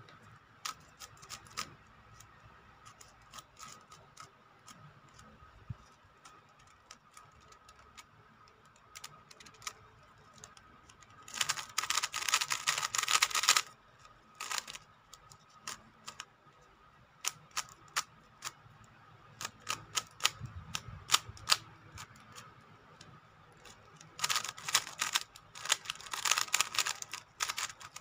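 Plastic clicking of a GAN 356M speed cube being handled and turned. There are scattered single clicks, then two runs of rapid turning clicks, each lasting two to three seconds, about halfway through and near the end.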